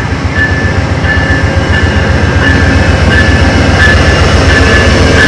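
Amtrak passenger train's brakes squealing as it slows to a stop, a high squeal coming in short pulses about every two-thirds of a second over a heavy low rumble of the rolling train.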